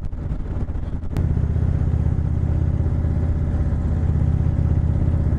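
2018 Indian Chieftain motorcycle's V-twin engine running on the road. After a short click about a second in, the engine gets clearly louder and holds there, as under more throttle.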